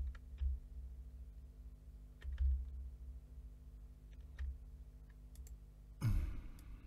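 Scattered light clicks of a computer keyboard and mouse, with a few soft low knocks. A short burst of the narrator's voice comes near the end.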